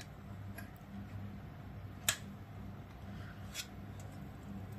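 A few sharp, small clicks and taps as the rice cooker's plastic base and its internal parts are handled, the loudest about two seconds in and another a second and a half later, over a faint steady low hum.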